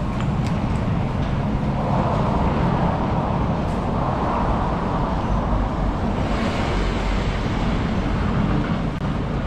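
Steady road traffic noise with a low rumble, swelling a little from about six seconds in.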